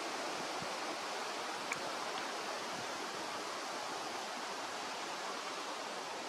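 Steady, even rushing noise of running water, with one brief faint high tick about two seconds in.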